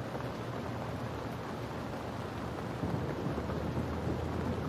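Steady heavy rain, with a low rumble of thunder swelling up about three seconds in.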